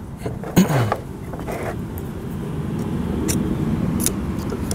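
Low rumble of a motor vehicle that grows louder and then holds steady, with one sharp knock about half a second in and a few faint light clicks later.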